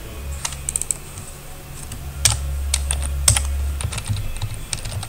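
Typing on a computer keyboard: scattered single keystrokes and short runs of clicks. Under them a low hum swells for about a second and a half from around two seconds in.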